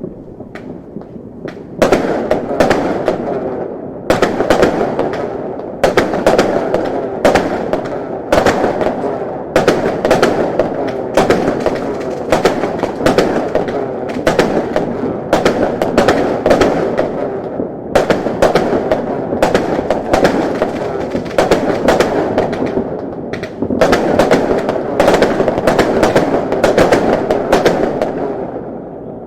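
Chinese fireworks going off in a dense, rapid crackle of pops and cracks, with louder bangs scattered through. The barrage starts about two seconds in and dies away near the end.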